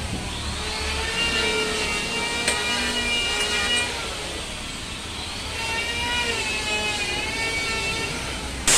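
A power tool running with a whine whose pitch wavers up and down in stretches, as if under changing load. A loud steady hiss cuts in suddenly near the end.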